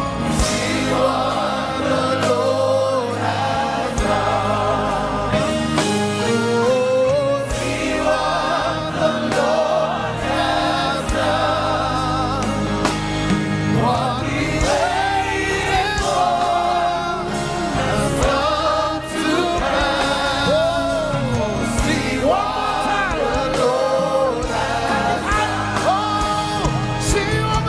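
Live gospel praise music: singers and a choir with vibrato over a band's steady bass and drum hits.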